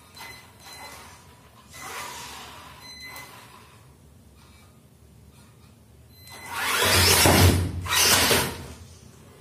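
WLtoys 12402-A RC truck's 550 motor and gearbox whirring hard as it accelerates up a cardboard ramp, with the clatter of the truck striking the ramp and the bed. This is a loud burst of about two seconds near the end, in two surges.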